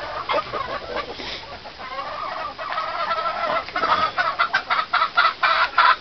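Chickens clucking: from about two seconds in, a hen gives a run of short, loud clucks that comes faster toward the end, about five a second.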